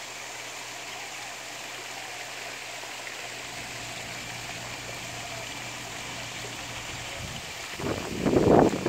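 Pond water splashing and trickling steadily from a fountain and a return outlet, with a faint low hum underneath. About a second before the end a louder, rougher rush rises over it.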